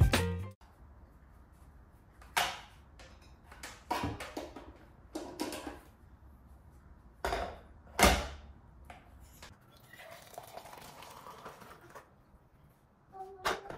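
Kitchen counter handling: a few short knocks and clatters as cups, lids and a bowl are set down on a stone countertop. Near the end comes about two seconds of a soft steady hiss of water poured from a stainless electric kettle into a tumbler.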